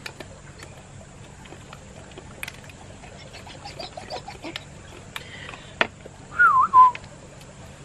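A short whistled call about six seconds in: it slides down, swings back up, then holds briefly on one note, and it is the loudest sound here. Around it are a faint steady high hiss and scattered light clicks.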